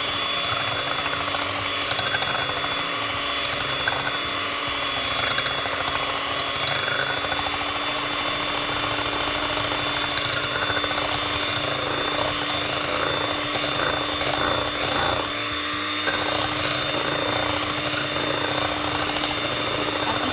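Electric hand mixer running steadily, its beaters whipping egg whites in a glass bowl into a foamy meringue.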